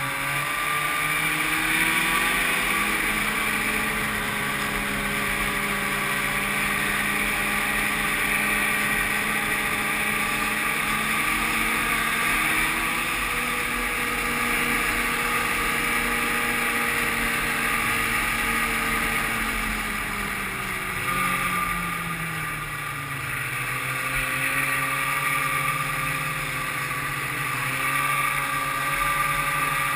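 1995 Ski-Doo Grand Touring snowmobile's two-stroke engine running under way across open snow, its pitch climbing in the first couple of seconds, holding steady, dropping about twenty seconds in, then rising again near the end.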